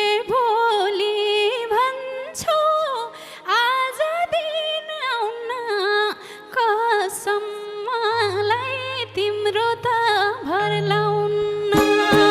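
A woman singing a wordless, wavering Nepali folk melody with many slides and turns in pitch, over sparse accompaniment; a low bass note comes in about eight seconds in, and fuller instruments return near the end.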